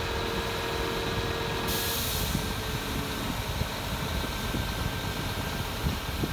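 Scania G480 hooklift truck's diesel engine running steadily while its hydraulic hook arm works a tipped steel container. About two seconds in, a steady whine stops and a short hiss sounds.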